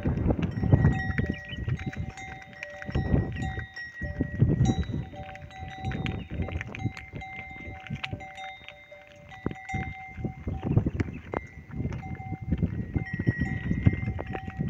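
Bells on Kankrej cattle ringing and jangling as the herd walks. Under them runs a low rumble that swells and fades.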